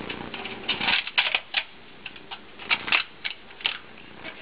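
Thin clear plastic crust lid crackling and clicking against the rim of an aluminium foil pie tin as it is fitted over the pie, in a string of irregular sharp clicks with short pauses between them.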